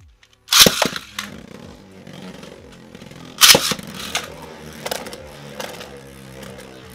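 Two Beyblade Burst attack-type tops, Strike Valtryek V3 and Xcalius X3, launched into a plastic stadium with a loud clatter about half a second in. They spin with a steady whir and clash, with a loud crash of a hit about three and a half seconds in and a few lighter clicks of contact after it.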